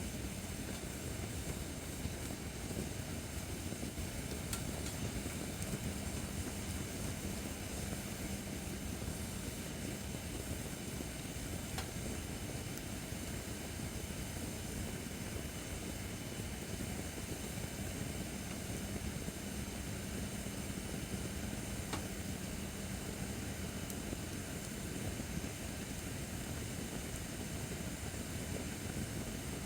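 Acacia firewood burning in a fire pit: a steady rushing of the flames, with a couple of faint pops.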